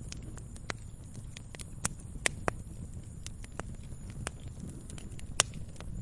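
Wood fire crackling: irregular sharp pops and snaps over a low steady rumble, with a few louder pops about two seconds in and again near the end.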